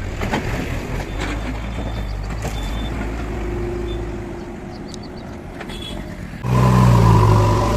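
JCB 3DX backhoe loader's diesel engine running steadily, with a few short knocks; about six and a half seconds in it suddenly gets louder.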